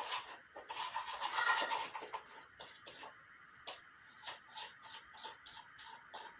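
Toothpaste and salt slime mixture being stirred and scraped in its container. There is a busy stretch in the first two seconds, then separate scraping strokes about three a second.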